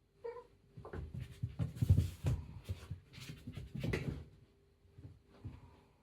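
A cat gives a brief chirping call, then its paws thud and patter rapidly across the floor as it sprints and dodges obstacles, with a couple more thuds near the end.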